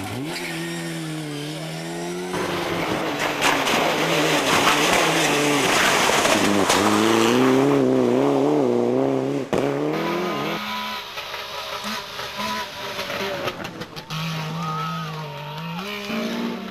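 Rally car engines revving up and down as cars drive a stage at speed, in several short clips one after another. In the middle a car passes loud and close with a long rush of noise, with some tyre squeal.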